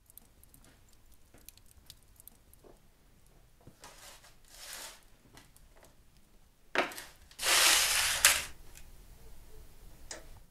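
A metal baking tray holding a foil-wrapped roll of meat being slid into a wood-fired oven: light clicks and foil crinkles, then a loud scrape of about a second as the tray goes across the oven's stone floor.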